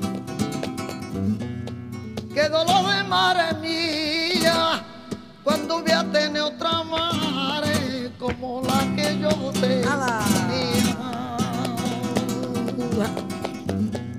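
Flamenco cante: a woman sings long, wavering melismatic lines over a flamenco guitar. The guitar plays alone for the first couple of seconds and again in a short stretch mid-way.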